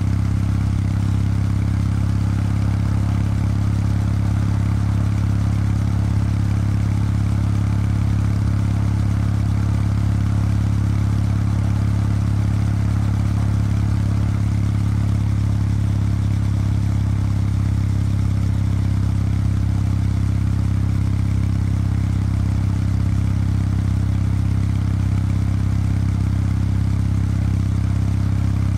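Kawasaki W800 Street's air-cooled parallel-twin engine running through its stock exhaust at a steady cruise, one low exhaust note holding the same pitch throughout with no gear changes or revving.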